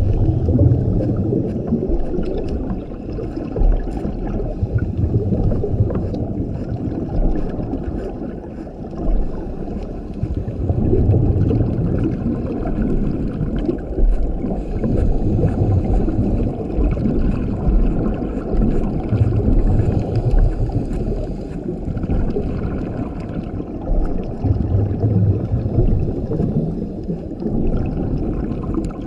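Scuba diver's regulator breathing underwater, with exhaled bubbles rumbling out in a low, muffled swell every six seconds or so.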